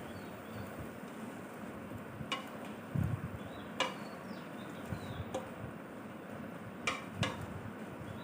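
Stir-fry of vegetables and sliced sausages in a pan: a steady low sizzle, with a spatula knocking and scraping against the pan about five times.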